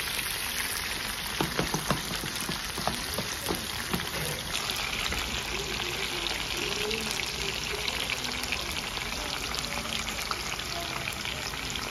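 Sliced onion frying in hot oil in a disco (plow-disc pan): a steady sizzle with crackling that grows brighter about four seconds in.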